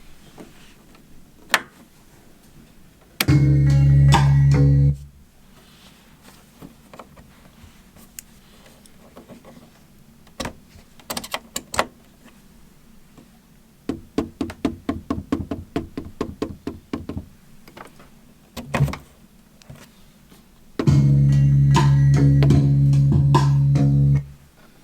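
S2400 sampler playing a low sampled bass note, held steady for nearly two seconds, then again for about three and a half seconds near the end. In between, soft scattered clicks and a quick run of ticks.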